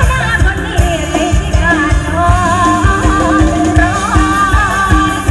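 Live Isan mor lam / luk thung band music played loud through the stage PA: a woman sings a winding, wavering melody over electric band backing and a steady pounding drum beat.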